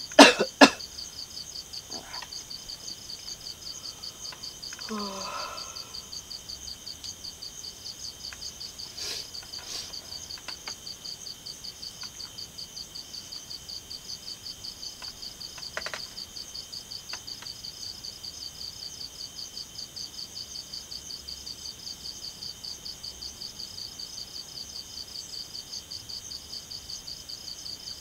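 Crickets chirping in a steady, fast, even pulse. A brief loud burst comes just after the start, a short faint rising sound about five seconds in, and a few soft clicks later.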